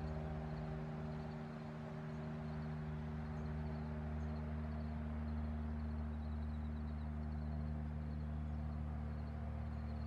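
Cessna 172 Skyhawk's piston engine and propeller droning steadily.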